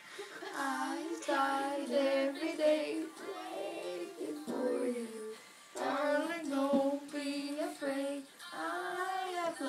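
Children singing a song, with held notes and pitch wavering between phrases.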